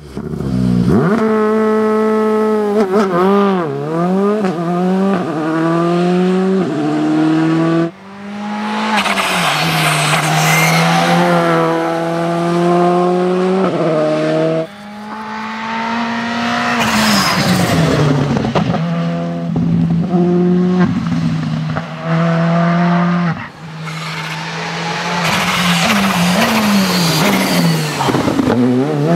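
Škoda Fabia Rally2 Evo rally car's turbocharged 1.6-litre four-cylinder engine driven flat out past the roadside in several passes, one after another. The engine note rises and drops repeatedly through quick gear shifts and lifts for corners.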